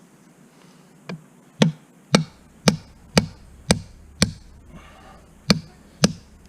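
A hand hammer, likely the 2-pound hammer, strikes steel rebar about nine times, roughly two blows a second with a short pause near the end, each blow ringing briefly. It is driving rebar pieces into undersized holes drilled in a steel pipe, a tight forced fit.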